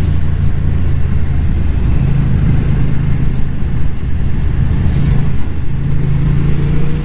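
Motorcycle engine running steadily while riding at road speed, heard from on board with wind rush over the microphone.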